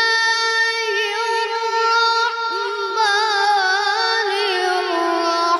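A child's loud, high voice reciting the Quran in the melodic tilawah style, drawing out long notes with trembling, winding ornaments. A fresh phrase begins about three seconds in.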